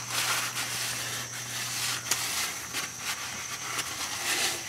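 Napkin rubbing over a truck's metal cross member in a run of short wiping strokes, cleaning off spilled engine oil, with a low steady hum that stops about halfway through.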